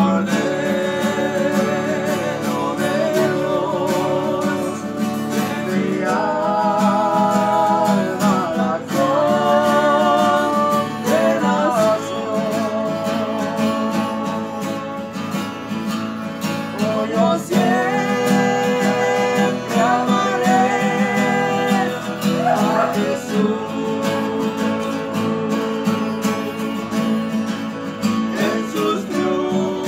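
Strummed acoustic guitar with a second guitar, while men sing a worship song. The singing drops back and returns a couple of times, over steady guitar accompaniment.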